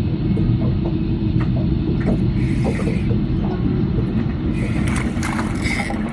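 Fishing reel being wound in on a small hooked fish: light, irregular clicking from the reel over a steady low rumble of wind on the microphone.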